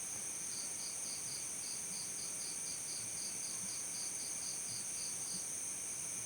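Crickets chirping: a steady high-pitched trill, with a second cricket giving a run of evenly spaced chirps, about four a second, that starts about half a second in and stops a little after five seconds.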